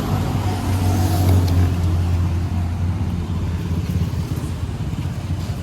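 Diesel engine running steadily at close range with a deep, even drone, a little louder about a second in.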